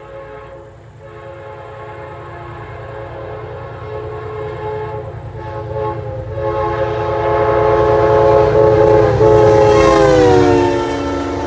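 Amtrak locomotive's multi-chime air horn sounding a long chord with a few short breaks, over the rumble of the train, growing louder as the train nears. About ten seconds in, the chord drops in pitch as the locomotive passes.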